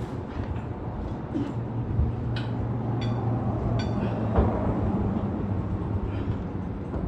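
A steady low hum runs throughout, with several short ringing metallic clinks and clanks in the middle, from metal tools and parts being handled during a transmission install.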